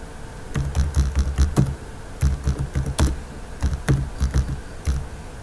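Computer keyboard being typed on: irregular keystrokes in short quick runs with brief pauses between them, each key a sharp click with a dull thud under it.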